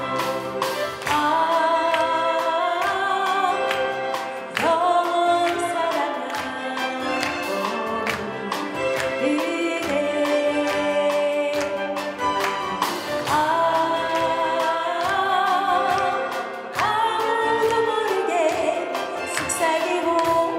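A woman sings a Korean love song live to her own acoustic guitar, with a chamber ensemble of violins, cello and double bass accompanying her.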